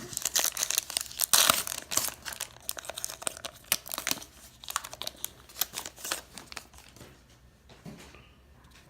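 A foil trading-card pack being torn open and its wrapper crinkled, a dense crackling that tapers off to light rustling in the last couple of seconds.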